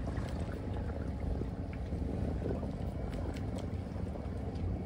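Steady wind rumble on the microphone and water noise around a small boat at sea, with a few faint scattered ticks.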